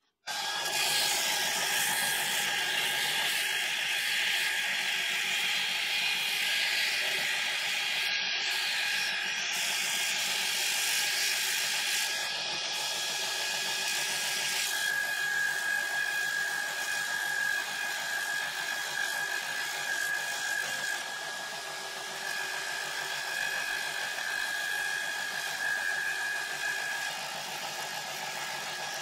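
Belt grinder running, a forged steel hammer head being ground against the abrasive belt over its contact wheel. It is a steady high whine that starts abruptly and grows stronger about halfway through.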